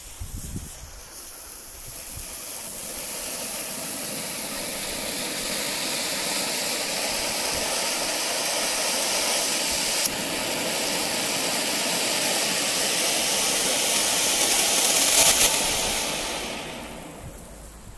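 Panda Vulkanix firework fountain (ground volcano) burning: a steady rushing hiss of spraying sparks that builds up over the first couple of seconds, swells briefly near the end, then dies away as the fountain burns out.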